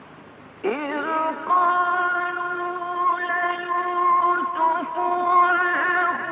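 Male Quran reciter's voice in melodic tajweed recitation, unaccompanied: after a moment of recording hiss it comes in under a second in and holds one long, ornamented note, with small melodic turns near the end.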